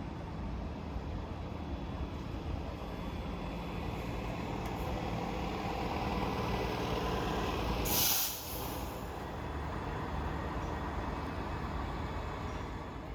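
Transit bus engine running close by, swelling a little, with one short hiss of air brakes about eight seconds in.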